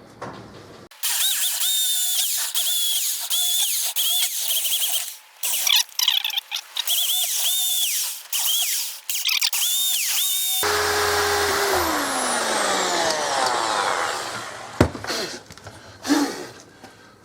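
Mains corded electric drill boring holes in wood with a 13 mm bit, its high motor whine dipping in pitch again and again as the bit bites and the motor slows under load. Near the middle the trigger is released and the motor winds down with a falling hum, followed by a single knock.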